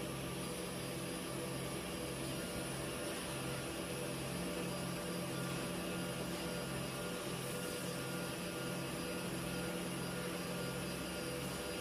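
Fibre cement board grooving and slot milling machine running: a steady motor and cutter drone with several steady tones and a low hum that pulses regularly.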